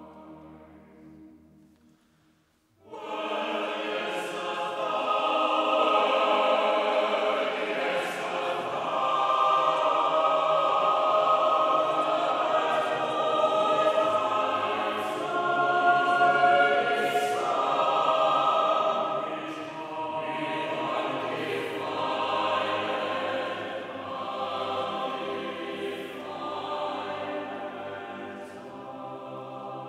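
Chamber choir singing a cappella in a stone-vaulted chapter house. A held chord fades away, and after a brief pause the full choir comes in together about three seconds in, singing a sequence of changing chords.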